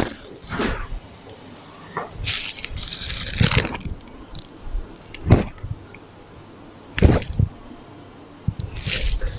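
Handling sounds of a ceramic serving plate on a marble counter: a few sharp knocks as the plate is shifted and set down and garnishes are placed, with a longer rustle about a third of the way in and another near the end.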